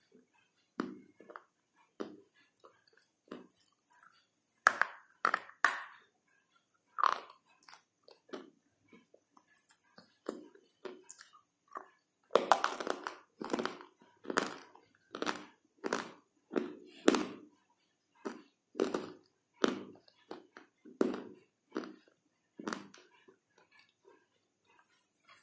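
Close-up crunching of a hard white mineral block being bitten and chewed. The crunches come irregularly at first, then settle into a steady, louder chewing rhythm of about one or two a second from about halfway in.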